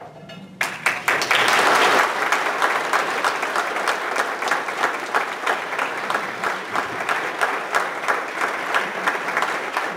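Audience applauding, breaking out about half a second in, loudest over the first couple of seconds, then carrying on steadily.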